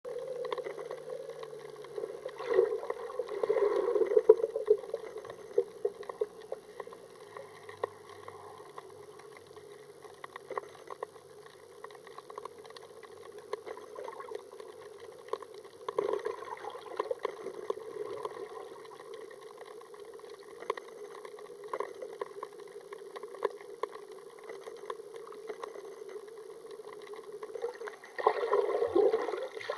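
Muffled underwater noise picked up by a submerged camera, with many small clicks throughout. It swells louder twice, a few seconds in and near the end.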